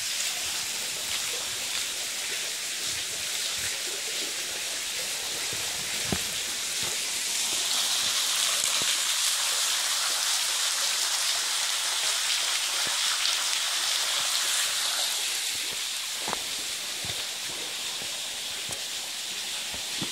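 Steady rush of a small stream and waterfall running over rocks, swelling louder for several seconds in the middle.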